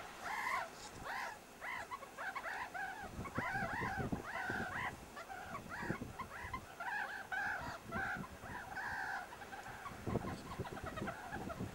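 Meerkats play-fighting, giving many short chirping calls in quick succession, each rising and falling in pitch. Low thumps and rumbles come in from about three seconds in.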